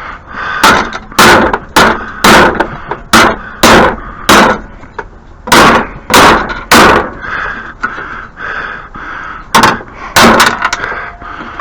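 Hammer blows on the metal of a snow thrower, about a dozen sharp strikes roughly half a second apart in three runs, knocking a stuck part loose.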